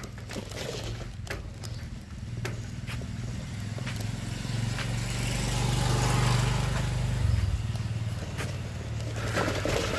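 A small motorcycle engine running as it passes, growing louder to a peak about six seconds in and then fading. Short rattles and clicks from the bicycle on the rough dirt lane sound along with it.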